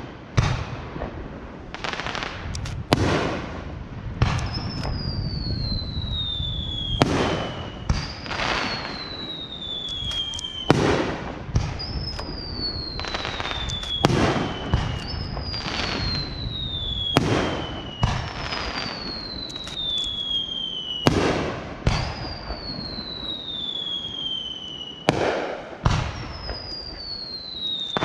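Aerial firework shells going off in a steady series, a sharp bang every second or two. Long whistles slide down in pitch over two to three seconds, a new one starting about every three to four seconds.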